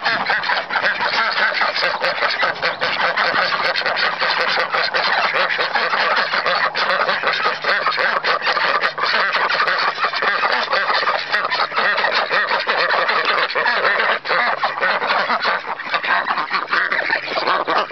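A flock of white domestic ducks quacking without pause, many loud calls overlapping into one continuous clamour as they crowd in at feeding time.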